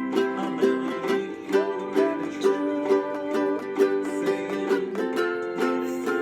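Ukulele strumming chords in a steady rhythm of about three strokes a second, changing chord twice.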